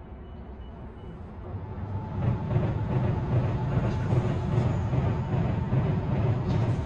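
Electric train approaching, growing louder over about two seconds, then running past with a steady rumble.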